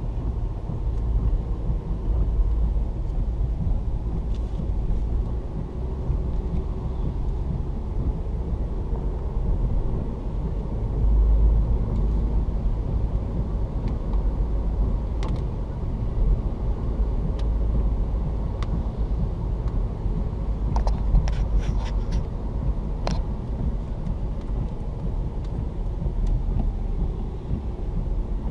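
Steady road and engine rumble heard from inside a moving car, with a few faint ticks near the middle and about three quarters of the way through.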